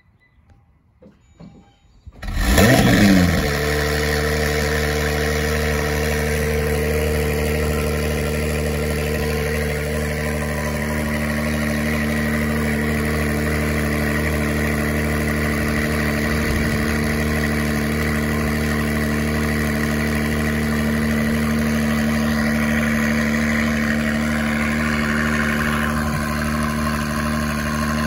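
Modified 2017 Acura NSX's twin-turbo 3.5-litre V6, fitted with aftermarket downpipes, cold-starting about two seconds in. The revs flare briefly, then the engine settles into a steady idle.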